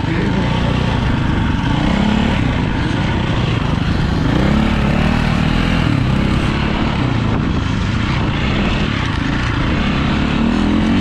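2004 KTM 450 EXC dirt bike's four-stroke single-cylinder engine under way, revving up and down as the throttle is worked, its pitch rising and falling again and again.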